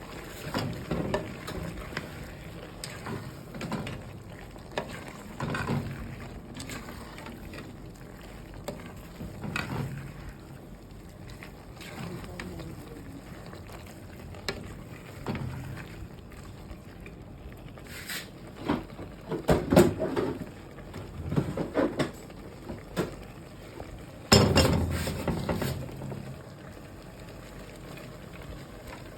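Cooking sounds: a utensil stirring and knocking against a pot or pan over a steady low hiss, with scattered clinks and two louder bouts of clattering in the second half.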